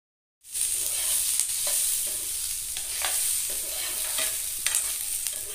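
Chopped onions sizzling in hot oil in a non-stick frying pan, with a spatula scraping and stirring through them at irregular intervals. The sizzle starts abruptly about half a second in.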